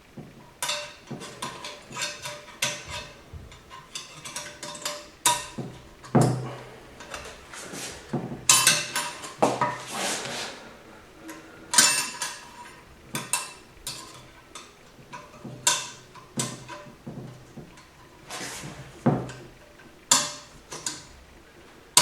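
Metal parts of a Ford 5R55S automatic transmission clinking and knocking together as they are handled and fitted. The light impacts come at irregular intervals throughout, several with a short metallic ring.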